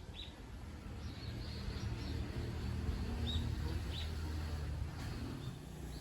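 Small birds chirping now and then, short high calls scattered through, over a steady low outdoor rumble.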